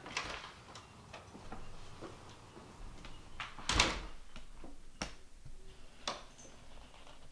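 A wooden front door being opened and pulled shut. The shutting lands as the loudest knock, a little under four seconds in, with a few smaller clicks before and after it.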